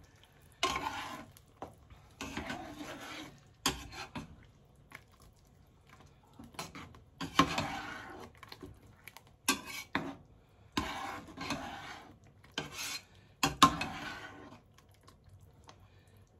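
Metal spoon stirring and scraping apple pie filling in a nonstick pot as it thickens with cornstarch. Repeated scraping strokes come at irregular intervals, with a few sharp clicks of the spoon against the pot.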